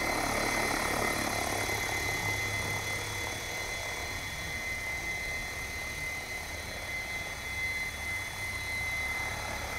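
Assault 700 electric RC helicopter, running on a single 6-cell battery, hovering at low head speed. It gives a steady rotor hum with a constant high whine from the motor and drivetrain.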